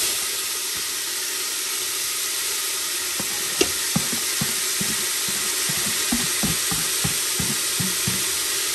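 Chopped green onion, celery and bell pepper sizzling in melted butter in an Instant Pot's stainless steel inner pot on sauté. From about three seconds in, a spoon knocks and scrapes against the plate and pot as the vegetables are scraped in and stirred, several knocks a second.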